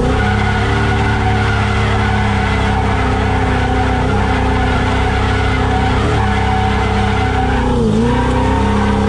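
Ford SN95 Mustang drift car heard from inside the cabin: the engine held at high revs while the tyres skid and squeal through a drift. The revs dip briefly and pick back up twice, about six and eight seconds in.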